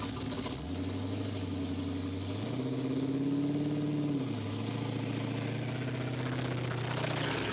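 Bigfoot monster truck's engine running under load as it paddles through a river, its big tyre treads churning water. The engine note rises about two and a half seconds in and drops back about a second and a half later.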